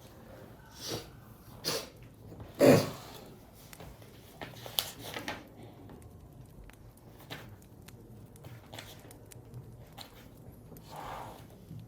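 Several short coughs at uneven intervals, the loudest about three seconds in and a softer one near the end, with faint clicks in between.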